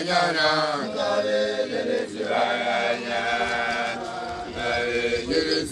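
A group of young Basotho initiates chanting together in unison, many male voices holding long notes in phrases, with a brief break about two seconds in.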